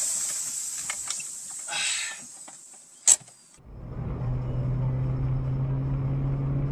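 Faint street noise with a few clicks, then one sharp click about three seconds in. After a short gap comes the steady low drone of a car's engine and road noise, heard from inside the moving car.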